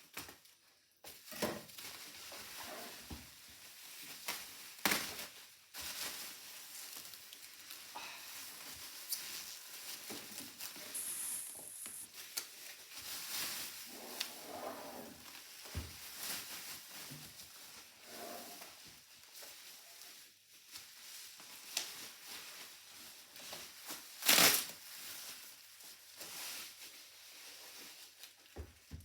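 Packing material being pulled away and crumpled by hand: irregular rustling, crinkling and tearing with scattered light knocks, and one sharp knock about 24 seconds in.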